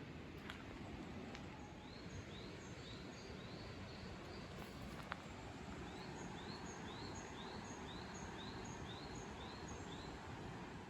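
Faint forest ambience with a bird repeating a short, high rising call about twice a second in two runs, and a single click about five seconds in.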